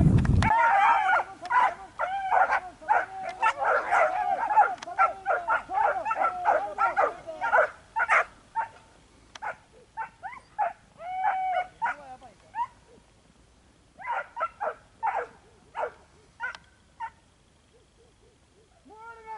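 Tazi sighthounds yelping and barking in quick, excited cries, dense for the first eight seconds or so. The cries then thin out into scattered yelps and one longer whine, and stop about two seconds before the end.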